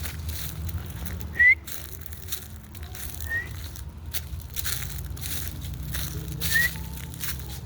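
Dry leaves rustling and crunching in repeated noisy bursts over a low steady rumble. Three short high rising chirps cut through: about a second and a half in, around three seconds in, and near the end.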